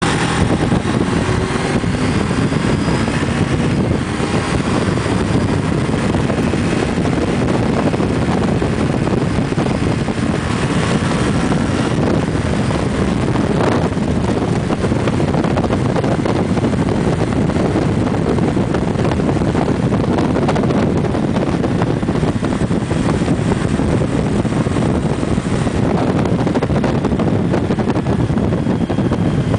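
1994 Honda VFR750F motorcycle's V4 engine running steadily while riding, mixed with heavy wind buffeting on the onboard camera's microphone.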